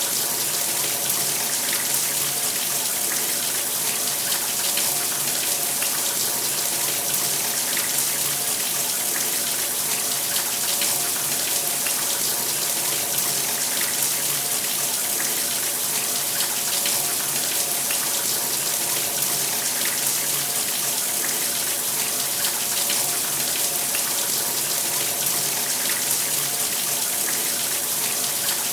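Shower spray running steadily, water hissing and splashing down with a faint steady hum underneath.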